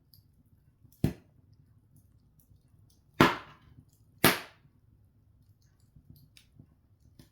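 Open fire of seasoned logs burning, with faint scattered crackling and three sharp, loud pops: about a second in, then about three and four seconds in. The middle pop is the loudest.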